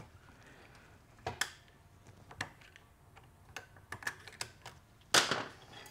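Scattered light clicks and clinks of TH350 transmission parts, including the forward clutch drum, being handled and set down on a steel workbench, about one every second, with a louder, brief clatter about five seconds in.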